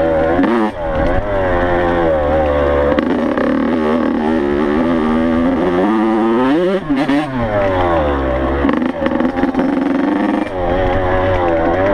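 Yamaha YZ85's two-stroke single-cylinder engine under way on a dirt bike, revs climbing and dropping continually with the throttle, with one sharp swing up and back down about seven seconds in.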